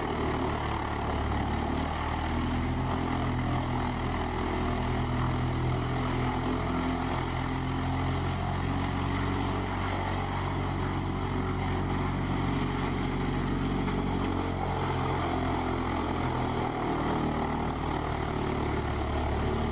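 Large whole-tree chipper running steadily at full speed, a heavy engine drone with a constant rush of noise over it, as a grapple loader feeds tree stems and branches into it for chipping.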